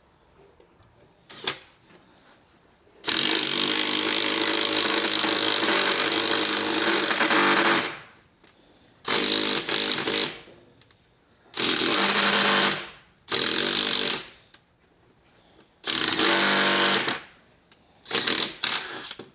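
Hammer drill with a 9/16-inch bit boring a hole into concrete, run in bursts: one long run of about five seconds, then several shorter runs of a second or so each with pauses between.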